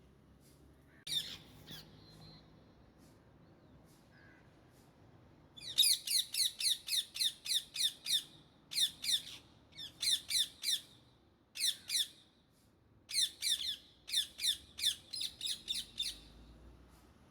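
Indian ringneck parakeet squawking: a single shrill call about a second in, then from midway on repeated runs of rapid, harsh calls, about five or six a second, in bursts of one to two seconds with short pauses between.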